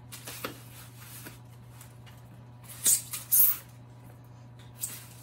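Packing wrap being pulled and rustled off an office chair's metal five-star base: a few short scratchy rustles, the two loudest about three seconds in, over a steady low hum.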